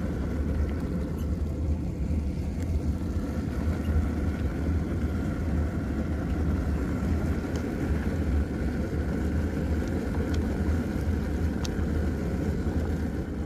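Camp stove burner running steadily under a large stockpot of boiling soup, a constant low rumble.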